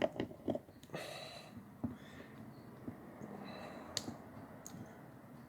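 Light clicks and taps of small steel parts of a Snap-On FHX80A ratchet being handled and fitted into its head as the gear goes in. A quick run of clicks at the start, a brief metallic clatter with a faint ring about a second in, and one sharp click about four seconds in.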